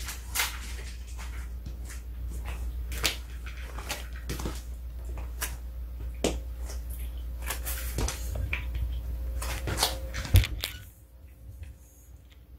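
Pomeranian barking in short, sharp yaps, one every second or so, begging for its food, over a low steady hum; the barking and hum stop about eleven seconds in.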